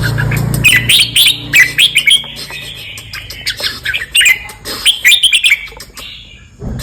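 Red-whiskered bulbul singing a run of short, quick chirping phrases, repeated again and again. A low hum underneath fades out in the first second.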